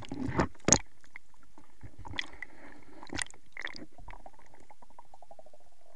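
Muffled water sounds heard through a camera held underwater: two sharp splashes in the first second, then scattered knocks and gurgles, and near the end a fast ticking that slows and drops in pitch.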